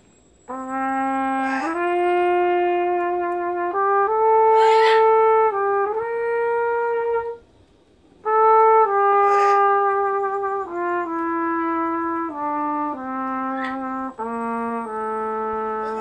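Solo trumpet playing a slow melody of held notes: one phrase starting about half a second in, a pause of about a second, then a second phrase.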